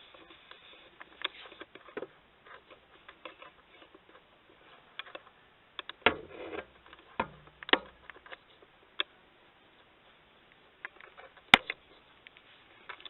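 Scattered small clicks, taps and rustles of objects being handled, with a louder run of knocks about six to eight seconds in and one sharp click near the end.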